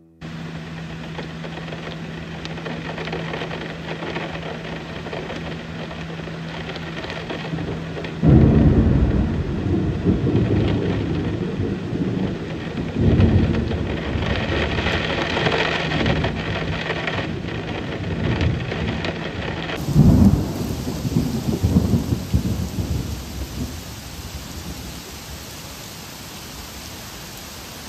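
Thunderstorm: heavy rain falling steadily, with several loud, low rumbles that come in suddenly and die away.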